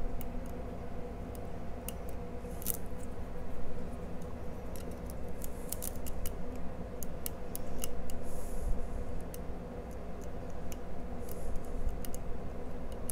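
Lock pick working the pins inside a Codkey Locksys L52 pin-tumbler lock held under tension: light, irregular metallic clicks and small scrapes, bunched at times to several a second.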